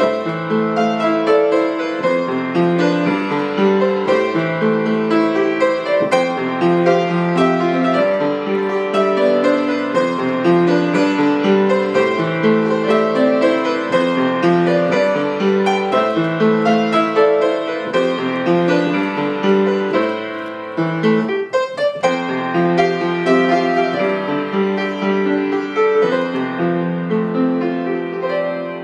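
Upright piano played solo with both hands, a continuous flow of chords and melody, with a brief break about three-quarters of the way through before the playing resumes.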